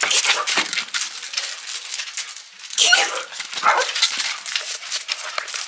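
Small shaggy dog giving a few short excited yips and whines: one at the start, one about three seconds in, and another a second later. Many small clicks and scuffs run underneath.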